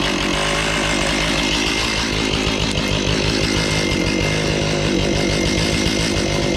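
Chainsaw running steadily, its pitch shifting a little now and then.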